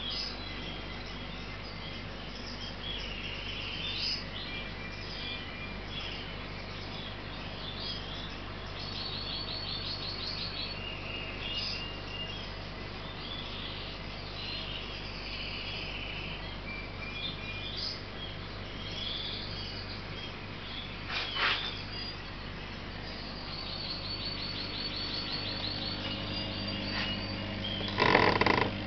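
Small birds chirping repeatedly, with a couple of buzzy trills, over a steady low hum of aquarium equipment. A short knock comes about 21 seconds in and a louder clatter near the end.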